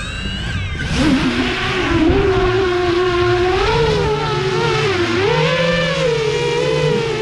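FPV quadcopter's motors and propellers whining, the pitch rising and falling as the throttle changes, with a dip and climb about five seconds in.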